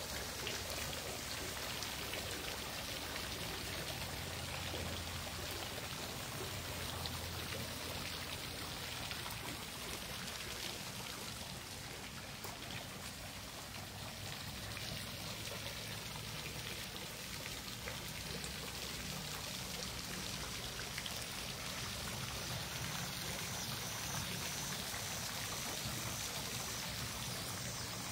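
Steady splashing of a pool fountain's water jet falling onto the pool surface, an even rain-like patter.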